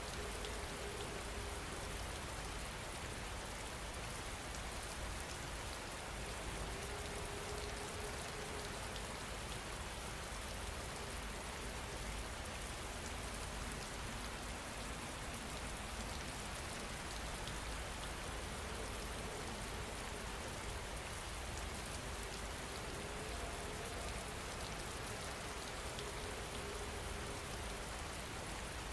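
Steady rain falling, an even hiss of many fine drops that holds constant throughout.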